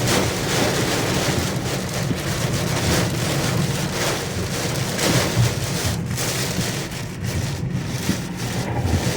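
Heavy rain and wind of a severe storm: a steady rushing noise with a constant low rumble underneath.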